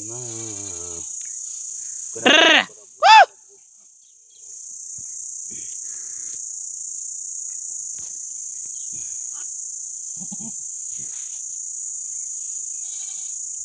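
Steady high-pitched insect buzz, broken by two short loud cries about two and three seconds in, during which the buzz drops out for a couple of seconds.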